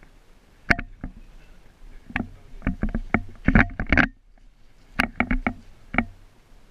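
G&G AR-15-style airsoft electric gun firing a series of sharp shots, some single and some in quick bursts of several shots, with a low hum under the bursts.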